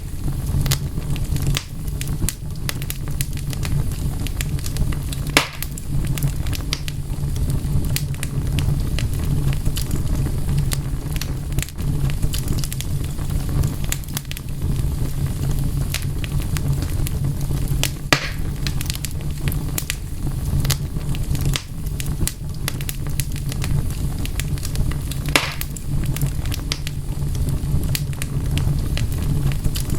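Wood fire crackling and popping, with a steady low rumble under dense sharp snaps and a few louder pops.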